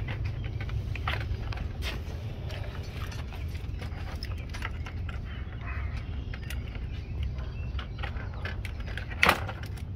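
Scattered clicks and crunches of red-handled tin snips and hands working the bottom end of a vinyl siding corner post, with one sharper snap near the end.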